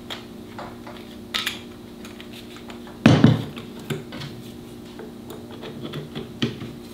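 Small plastic and metal handling clicks as the battery cap is screwed back onto the handle of a Quinn digital torque wrench, with one louder knock about three seconds in and a low steady hum underneath.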